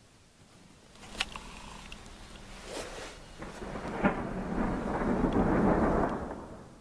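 Thunder during thundersnow: a sharp crack about a second in, then a rumble that swells to its loudest near the end and fades away.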